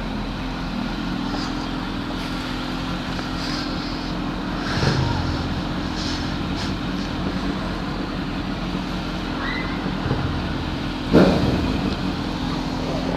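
Motorcycle engine running steadily while riding along at an even speed, with two brief louder bursts, one about five seconds in and one near the end.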